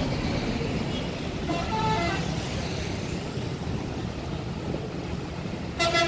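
Road traffic passing: vehicle engines and tyre noise. A short horn toot sounds about a second and a half in, and a loud vehicle horn blast starts just before the end as a large bus approaches.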